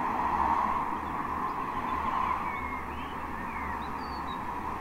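A few short, faint bird chirps over a steady rushing background noise.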